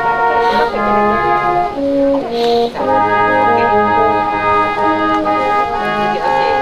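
Slow instrumental music of held chords, changing about once a second.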